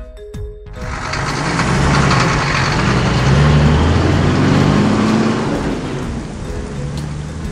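Cartoon school bus engine running over the steady noise of heavy rain, which comes in about a second in, is loudest in the middle and eases somewhat near the end. A few plucked music notes play at the very start.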